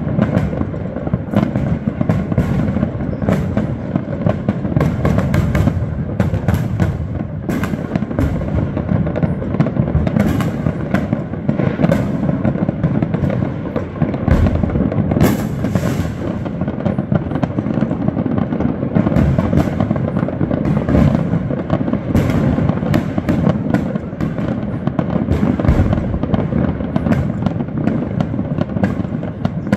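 A non-stop barrage of New Year fireworks and firecrackers: dense crackling and popping over a constant low rumble of bangs, with a sharp louder crack about fifteen seconds in.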